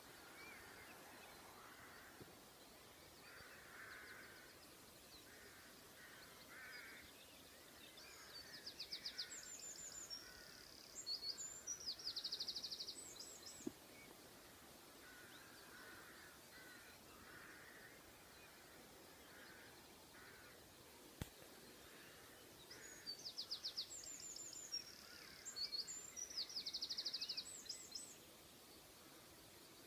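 Dawn birdsong in open country: a songbird sings two bouts of quick, high trills and notes, a few seconds each, about a third of the way in and again near the end. Distant crows caw on and off underneath, with a single sharp click about two-thirds of the way through.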